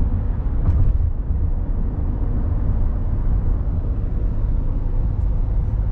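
Steady low rumble of a car driving along a road, heard from inside the cabin: tyre and wind noise.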